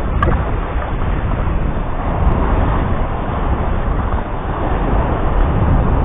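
A vehicle on the move: steady low road and engine noise, even throughout with no distinct events.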